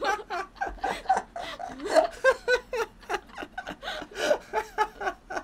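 Two people laughing hard together, in a long run of short bursts.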